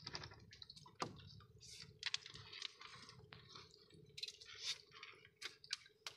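Faint, irregular small splashes and drips of water with light clicks and knocks of gear against a small outrigger fishing boat, as a net is handled over the side.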